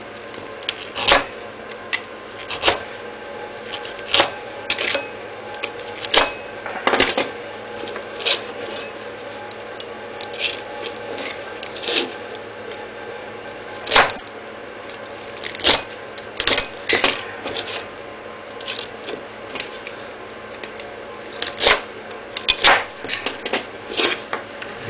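A knife blade cuts the worn abrasive cloth from the rim of a flap sanding disc, drawn along a putty knife edge. It makes short, sharp scraping cuts at an irregular pace, sometimes in quick clusters.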